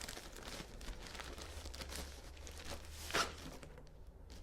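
Packaging crinkling and being torn open by hand as an item is unwrapped. A series of short crackles, with one louder rip about three seconds in.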